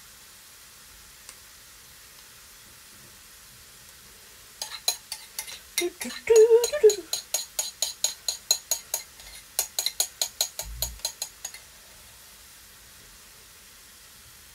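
A spoon scraping and tapping around the inside of a small bowl in quick strokes, about four a second, emptying miso glaze into a frying pan. It starts about four seconds in and stops about seven seconds later.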